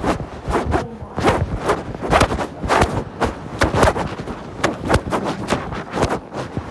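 Rustling and knocking on a covered phone microphone, about two knocks a second, the handling noise of a phone carried in a pocket.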